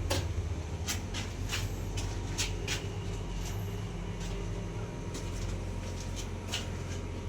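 A steady low machine-like hum with about a dozen sharp clicks and knocks scattered irregularly through it.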